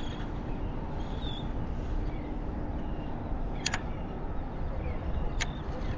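Steady low rumble of outdoor background noise, with a faint even hum in the first half and two short sharp clicks in the second half.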